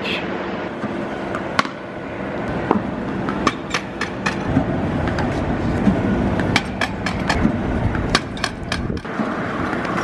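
Cricket batting practice in a net against a bowling machine: irregular sharp knocks and clicks over a steady rumble.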